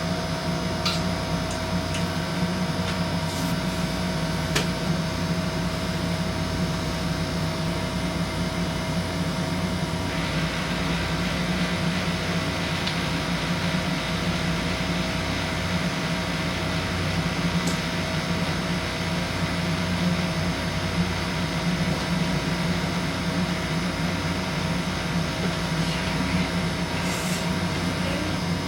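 Steady mechanical hum, even throughout, with a few faint clicks.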